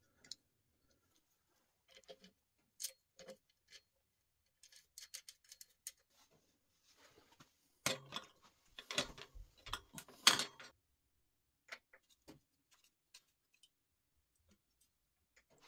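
Scattered metallic clicks and clinks of bicycle parts being fitted by hand. A cluster of louder knocks about eight to ten seconds in comes as the front wheel's hub is set into the fork dropouts.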